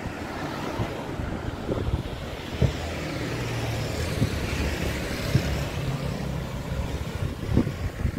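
Street traffic: a vehicle engine running nearby under a steady rumble of wind on the microphone, with a few short knocks.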